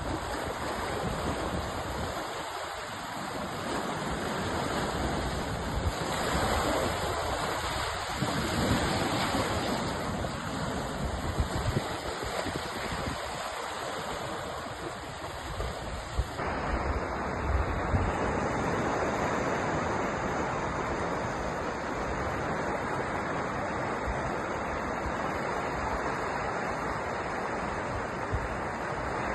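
Sea waves washing onto a shore: a continuous rushing surf that swells and eases. The sound changes abruptly about sixteen seconds in.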